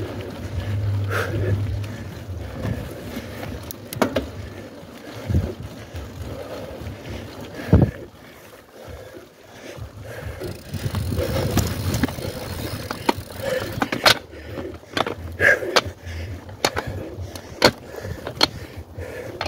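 Mountain bike being ridden over rough cross-country trail: wind rumbling on the microphone, with many sharp knocks and rattles from the bike over the ground. The loudest knocks come about eight seconds in and near fourteen seconds.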